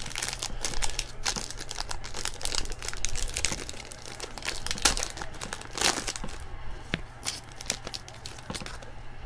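Foil wrapper of a 2018 Tier One baseball card pack crinkling and tearing as it is opened by hand: a run of crackles, with a couple of louder crinkles about five and six seconds in.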